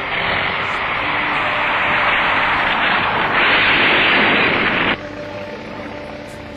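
A single-engine monoplane's engine running on a heavily loaded takeoff run, heard as a loud noisy rush on a worn old film soundtrack. It grows over the first few seconds and cuts off suddenly about five seconds in, leaving a quieter hiss with faint steady hum tones.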